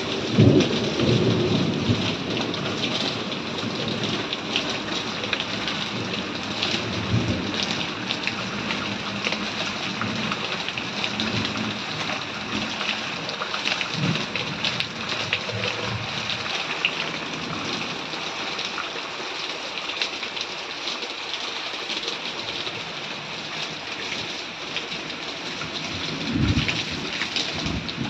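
Steady heavy rain falling, with low rumbles of thunder swelling every several seconds, the strongest near the start and near the end.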